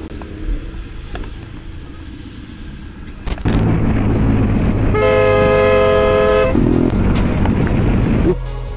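A vehicle horn blares once, held for about a second and a half, near the middle, over steady road noise that grows much louder about a third of the way in.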